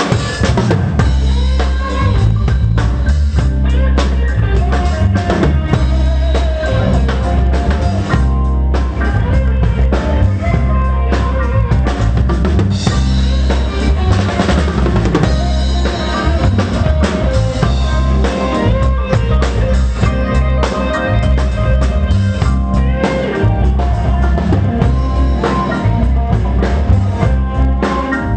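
Live pop band playing a song on stage, with drum kit and heavy bass at the front of the mix. It is a short test piece played during a sound check so the musicians can judge their monitor mix.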